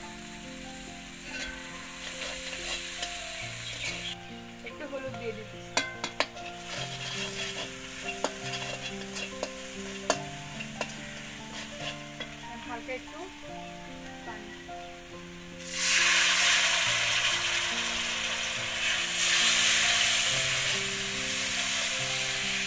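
Onion and spice paste frying in oil in a karahi, with a metal spatula stirring and scraping and several sharp clicks against the pan. About two-thirds of the way through, the sizzling suddenly grows much louder and stays loud.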